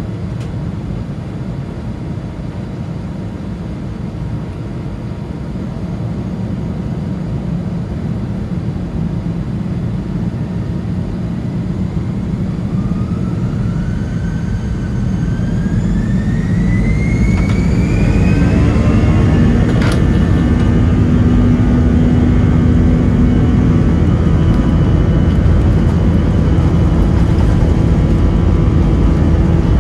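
Airbus A319's CFM56 turbofan engines heard from the cabin over the wing. They run at a low steady rumble, then about twelve seconds in spool up to full takeoff power with a rising whine, growing louder until they hold a loud roar with the many-tone buzzsaw of the fan as the brakes are released for the takeoff roll. A single sharp click about twenty seconds in.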